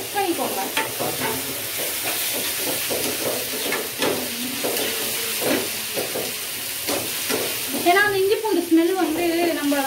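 Onion and tomato masala frying in oil in a pan with a steady sizzle, while a spatula stirs it and scrapes against the pan in irregular strokes.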